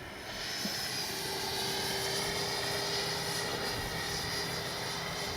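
The 80mm 12-blade electric ducted fan of an RC jet running in flight, a steady whine with a rushing hiss that grows slightly louder in the first second and then holds.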